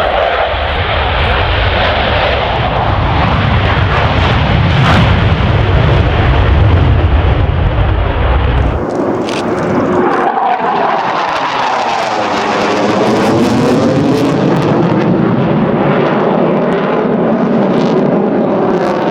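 Military fighter jet flying past at high power, loud and continuous. A deep rumble cuts off sharply about nine seconds in, leaving a rushing jet sound with slowly sweeping rises and falls in pitch as the aircraft moves away.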